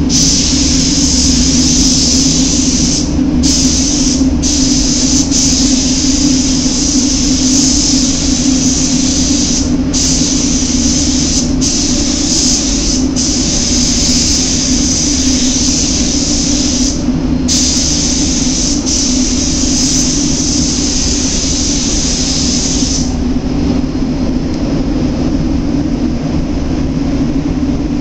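Gravity-feed paint spray gun hissing as compressed air atomises the paint, with several brief breaks where the trigger is let off. The spraying stops about five seconds before the end, leaving a steady low hum of the paint booth's ventilation.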